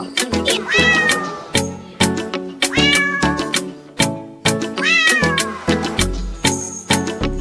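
Upbeat dance music with a steady beat, with a cat meowing three times over it, about every two seconds.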